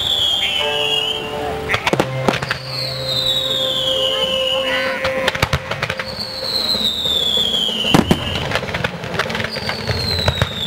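Fireworks display: shells bursting with sharp bangs, the loudest about two seconds in and near eight seconds, over continuous crackle. A high falling whistle recurs about every three seconds.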